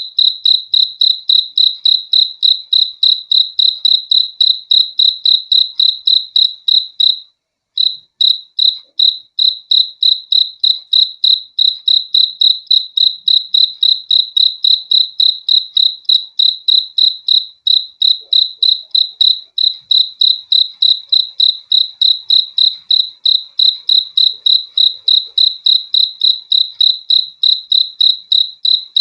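A cricket chirping close by: a loud, high-pitched, even train of short chirps, about four a second, with one brief pause about seven seconds in.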